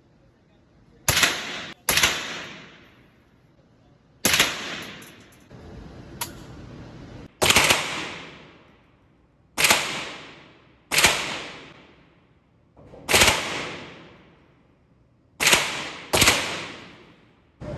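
Nine single gunshots fired one at a time at uneven intervals, two of them in quick pairs, each followed by a long echoing tail.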